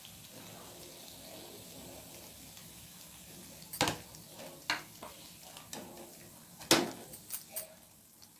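Vadas frying in hot oil with a soft, steady sizzle, then a few sharp clinks of a metal utensil against the frying pan as they are lifted out, the loudest about seven seconds in.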